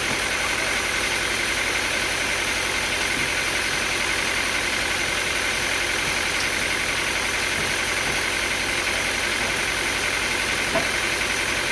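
An engine running steadily at idle, with no change in speed. A faint short click comes near the end.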